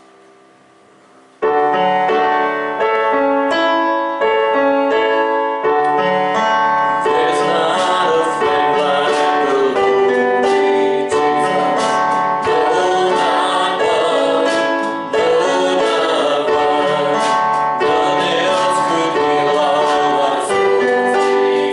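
Gospel worship music: after about a second of hush, a piano or keyboard starts playing sustained chords, bass comes in about six seconds in, and voices join singing shortly after.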